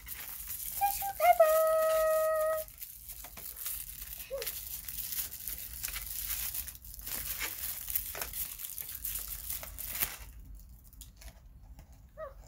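Tissue paper crinkling and tearing as a small gift is unwrapped by hand, easing off about ten seconds in. About a second in, a loud, steady, high-pitched note is held for about a second and a half.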